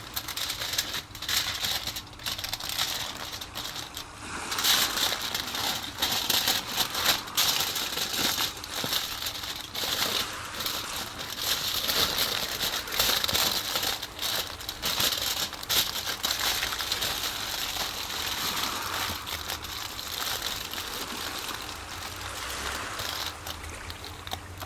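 Aluminium foil crinkling and crackling as it is folded and pressed around a whole chicken, an irregular, continuous rustle.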